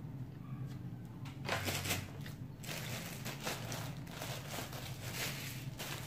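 Plastic bread bag crinkling and rustling as it is handled and opened, starting about one and a half seconds in.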